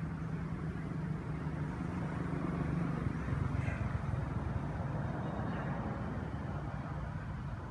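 Low, steady background rumble with an engine-like hum, swelling a little about three seconds in and easing off again.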